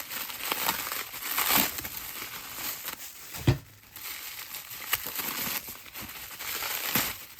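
Packing wrap crumpling and crinkling as wrapped crystal specimens are unwrapped by hand, with one sharp thump about halfway through.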